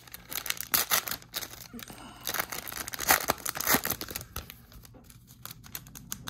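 Foil wrapper of a Topps 2021 Formula 1 trading card pack being torn open and crinkled by hand: a dense run of sharp crackles that thins out after about four seconds.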